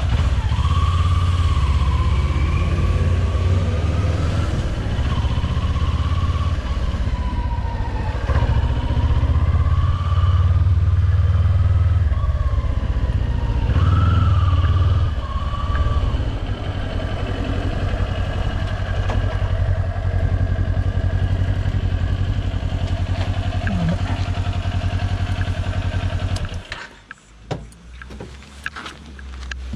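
Kawasaki Ninja 400's parallel-twin engine running under way, its pitch rising and falling as it pulls away and rides on. Near the end the engine sound drops away abruptly, followed by a few light clicks.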